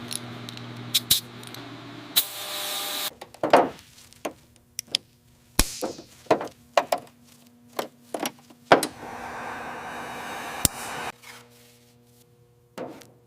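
Garage work sounds: a run of sharp clicks and knocks, with a short hiss about two seconds in and a longer rushing noise from about nine seconds, over a faint steady hum.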